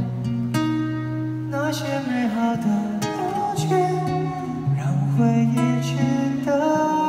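Live concert music: acoustic guitar over long sustained low notes, recorded on a phone from the audience.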